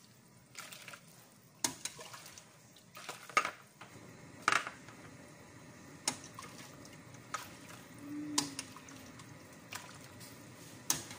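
A metal ladle clinking and scraping against a large metal cooking pot while liquid is scooped out and poured, splashing, into a plastic bowl. The liquid is broth left from boiling chicken. The clinks are scattered and sharp, with the loudest a few seconds in.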